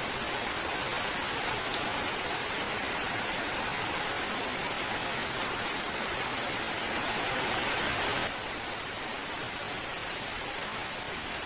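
Steady, dense rain hiss, even throughout, that drops suddenly a little in level and brightness about eight seconds in.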